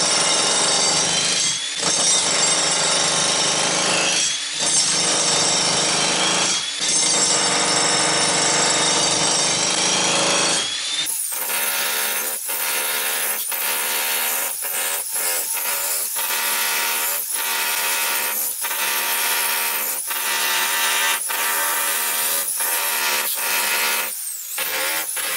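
Jackhammer chiselling into a basement concrete floor, hammering in long runs broken by short pauses. The pauses come more often in the second half.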